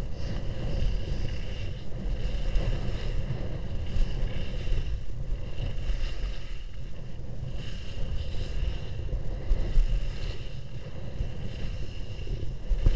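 Wind buffeting a helmet-mounted action camera's microphone during a downhill ski run, a steady low rumble, with the hiss and scrape of Atomic D2 Race skis sliding over packed snow.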